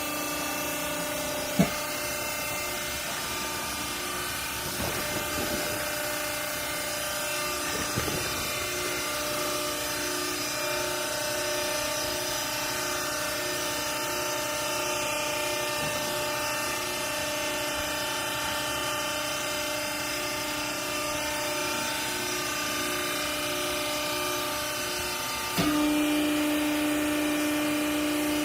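Hydraulic clothing baler's electric motor and pump running with a steady hum of several tones, with a sharp click about a second and a half in. About three seconds before the end the hum steps up suddenly, louder, with one strong steady tone.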